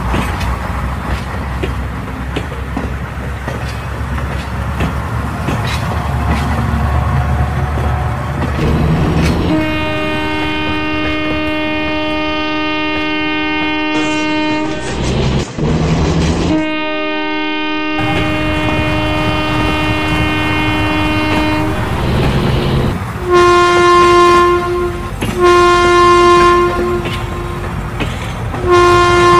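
Train running with a steady rumble, then a multi-tone train horn sounds two long blasts followed by shorter ones, the short blasts the loudest. In Indian Railways' horn code, two long and two short blasts are the motorman signalling the guard to take control of the engine.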